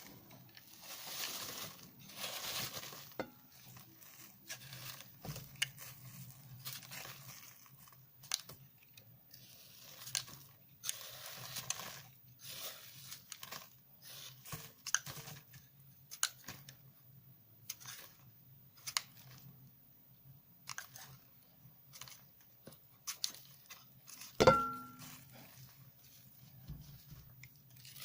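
A bar of laundry soap coated in washing powder being crunched and scraped, with gritty crackling in irregular bursts. Late on there is one loud sharp clack with a brief ring, like a hard object striking a dish.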